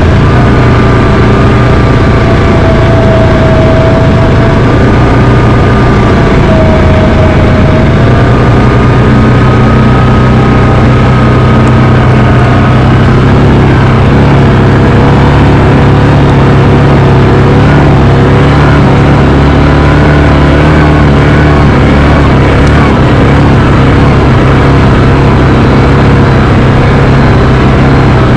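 A vehicle engine running loud and steady, close to the microphone, its pitch shifting a little now and then.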